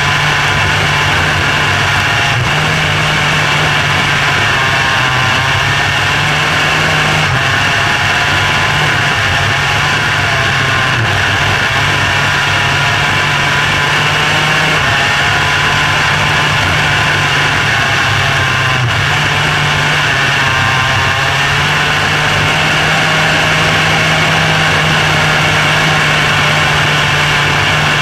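Onboard sound of a micro sprint car's motorcycle-derived engine running hard around a dirt oval, loud and steady, with a slight rise and fall in pitch twice as the revs change.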